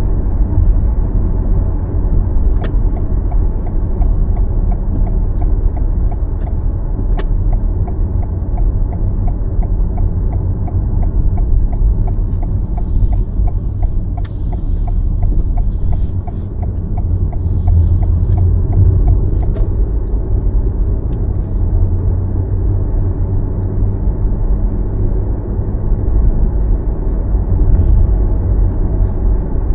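Steady low rumble of a car being driven, tyre and engine noise. A regular light ticking, about two or three a second, runs through the first half.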